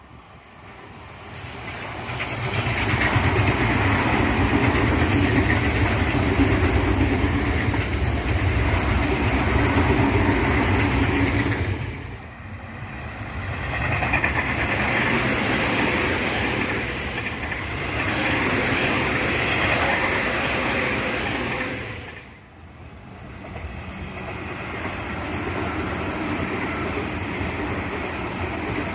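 Tobu Tojo Line electric commuter trains running past at speed, heard as three passes in a row with wheel and rail noise. The sound breaks off abruptly twice, about twelve and twenty-two seconds in, as one pass gives way to the next.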